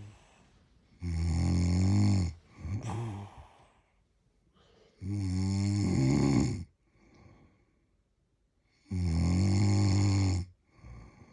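Loud snoring: three long snores about four seconds apart, each lasting about a second and a half, with quiet breathing between them.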